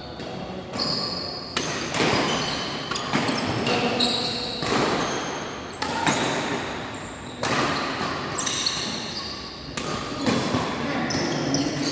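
Badminton rally: rackets striking the shuttlecock in sharp hits about every one to two seconds, mixed with short high-pitched squeaks of shoes on the court floor.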